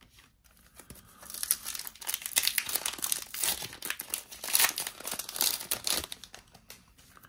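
Foil wrapper of a Pokémon trading card booster pack crinkling as it is handled and torn open, starting about a second in and stopping about six seconds in.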